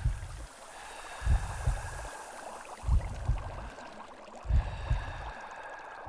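Underwater bubbling and water noise with deep double thumps repeating about every one and a half seconds, like a slow heartbeat, as an intro sound effect.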